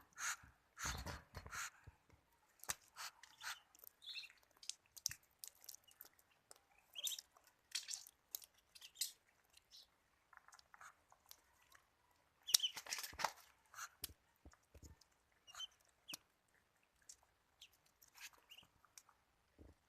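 Muscovy ducklings pecking at and eating tomatoes: irregular wet clicks and smacks of their bills, with a few brief high peeps.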